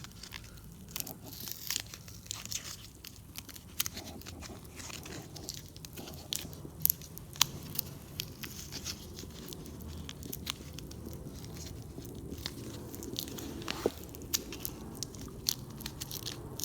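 Plastic hardware packaging being cut open and handled: irregular crinkling crackles and sharp clicks, with small tool and metal parts clicking.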